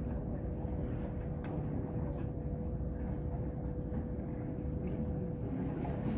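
Steady low rumble of seaside background noise with a faint constant hum running under it and a few light clicks.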